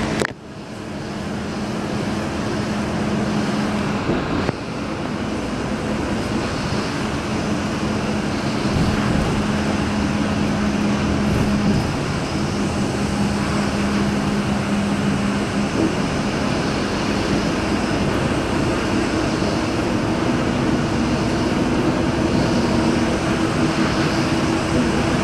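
Road traffic on a wet road: tyres hissing through standing water and vehicle engines running. Under the hiss is a steady hum that changes pitch about halfway through.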